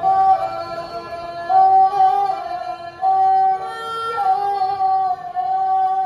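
Assamese folk orchestra playing a slow melody of long held notes that step up and down in pitch, with no drumming. Near the end one note is held long.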